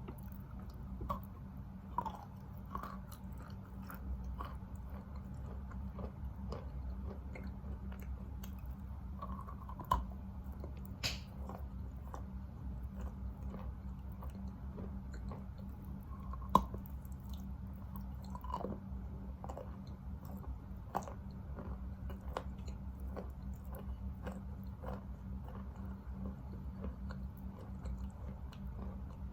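Wet Khrapovsky chalk being bitten and chewed: scattered small crunches and wet clicks as the grainy chalk is ground down into a paste, with a few sharper bites about ten, sixteen and twenty-one seconds in.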